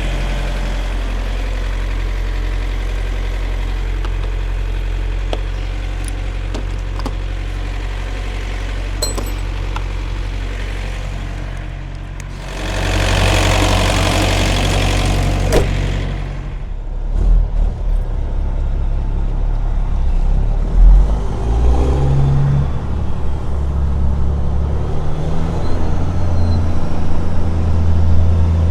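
Diesel engine of a trailer refrigeration (reefer) unit running steadily, just brought back to life by a new starter. About halfway through there is a loud hiss lasting a few seconds, followed by a deeper, louder and more uneven engine sound.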